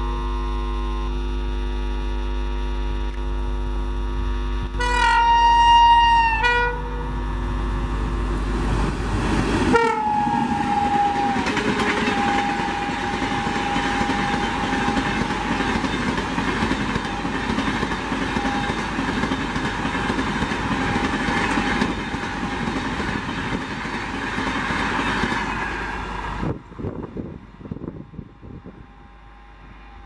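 WAP-7 electric locomotive's shrill horn sounding a long blast and a short one over a steady hum, then a passenger train rushing past at speed with wheel clatter and a held tone that drops slightly in pitch at first. The rushing sound cuts off abruptly near the end.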